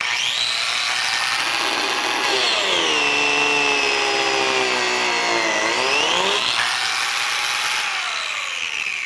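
Woodworking jointer running with a loud motor-and-cutterhead whine. About two seconds in the pitch sinks and stays low for a few seconds as the machine takes a cut in wood, then climbs back up; a shorter dip comes near the end.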